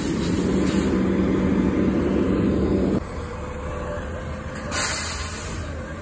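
Front-loader garbage truck's diesel engine running loud and steady at raised revs, cutting off abruptly about three seconds in to a lower rumble as the truck rolls forward. A short hiss of the air brakes releasing about five seconds in.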